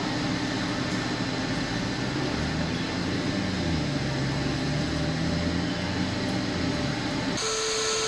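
Car-wash vacuum hose running steadily with a broad rushing suction noise, its low hum shifting a little midway. Near the end the sound changes abruptly to a different steady hum.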